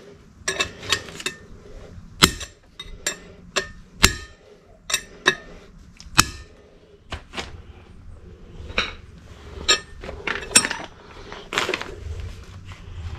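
Hammer blows on steel driving a new wheel bearing race into a GMC Sierra 3500 dually's rear hub through the old cut race laid on top: about twenty sharp metallic taps at an uneven pace, some ringing briefly, as the race is almost seated.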